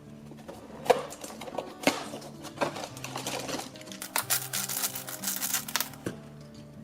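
Crinkling and rapid clicking of advent-calendar packaging and small plastic toy pieces being handled, starting about half a second in and stopping about six seconds in, with a sharp click about a second in the loudest. Background music plays throughout.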